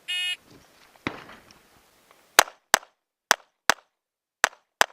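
A shot timer's electronic start beep, then a Walther PPQ 9mm pistol firing six loud shots in three quick pairs over about two and a half seconds. A fainter sharp crack comes about a second after the beep.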